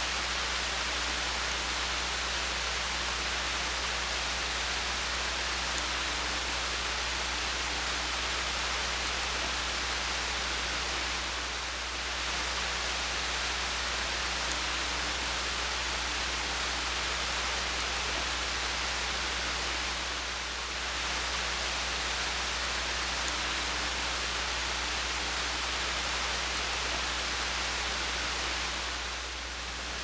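Steady hiss of falling rain, with a low steady hum underneath; it dips slightly twice.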